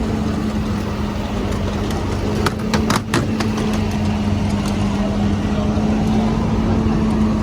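A fire engine's diesel engine running steadily at high idle with a constant hum, typical of an apparatus pumping water to hose lines. A few sharp clicks or knocks come about two and a half to three seconds in.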